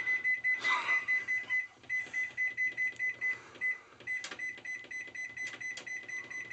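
Microwave oven's electronic beeper giving a rapid run of short, high beeps, about five a second with a couple of brief gaps, quickening after about four seconds, as its keypad buttons are pressed. A few faint clicks are heard among the beeps.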